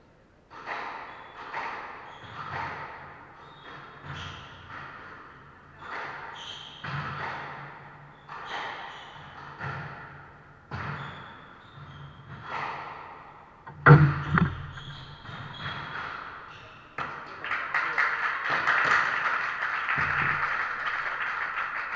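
Squash rally: the ball cracks off rackets and court walls about once a second, each hit echoing in the court, with one louder crack about two-thirds of the way through. In the last few seconds, after the rally ends, a steady crowd noise of clapping and voices rises.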